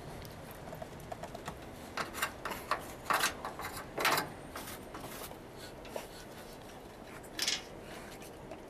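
Irregular metallic clinks and rattles of a cage's metal grating as a caged bear works at it. The louder clatters come in a cluster about two to four and a half seconds in and once more near the end.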